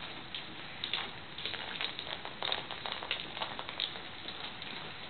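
Italian greyhound rolling a treat-dispensing ball with treats inside: an irregular run of light clicks and rattles.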